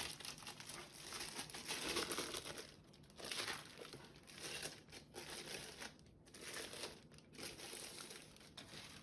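Packaging being handled and unwrapped, a soft rustling and crinkling that comes in irregular stretches with short pauses between them.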